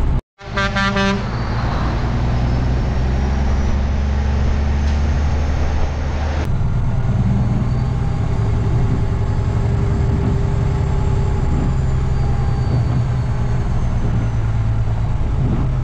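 A short horn toot about half a second in, then a heavy truck's diesel engine runs steadily with road noise, heard from inside the cab.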